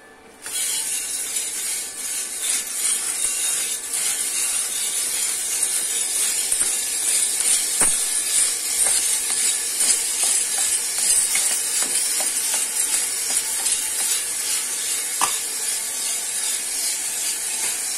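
Green coffee beans charging from the hopper into the Cormorant CR600 Electric roaster's turning drum and tumbling in it. It is a steady rushing rattle full of small ticks, and it starts suddenly about half a second in.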